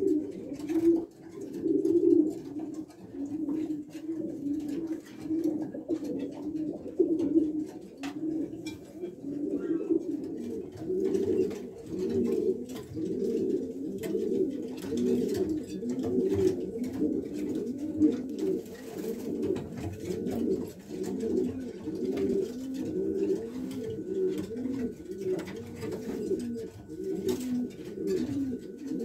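Many racing pigeons cooing at once, a dense chorus of overlapping low, pulsing coos, with scattered light clicks and taps.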